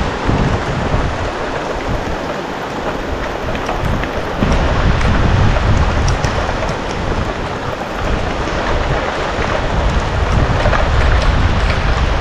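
Steady rain during a thunderstorm, with scattered drop impacts close by and a heavy low rumble of wind gusting on the microphone. The rumble grows louder a little before halfway through.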